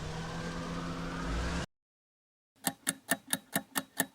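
A car engine running, rising a little in pitch, that cuts off suddenly about a second and a half in. After a short silence, a clock-like ticking starts, about five ticks a second.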